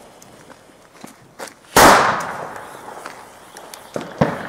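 New Year's Eve firecrackers going off: a couple of small pops, then one loud bang just under two seconds in that echoes away, and another sharp bang near the end, with faint scattered cracks in the background.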